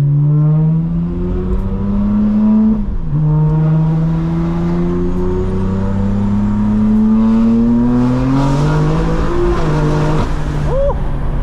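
BMW M4's S58 twin-turbo straight-six, breathing through a full stainless Valvetronic exhaust, pulling hard under acceleration. The engine note climbs, drops sharply at a shift about three seconds in, climbs again for about five seconds, then falls back as the throttle eases near the end.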